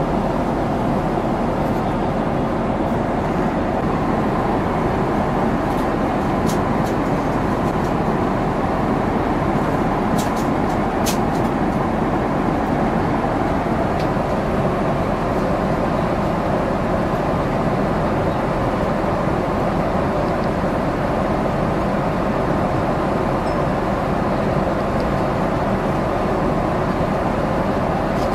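Steady cabin noise inside a Boeing 777-300ER: an even, loud rush of engine and airflow noise.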